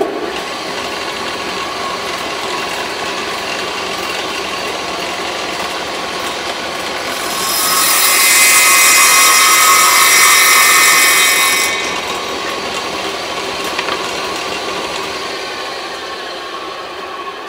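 Table saw running steadily with a motor whine, then cutting wood for about four seconds in the middle, a louder, higher hiss, as a small block is pushed across the blade at an angle. This is a light final pass of a cove cut with the blade just barely touching. After the cut the saw runs on, slowly getting quieter near the end.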